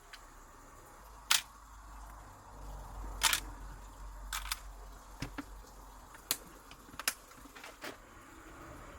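A series of sharp, irregular clicks and light taps, about nine in all and a few close together, over a faint low rumble.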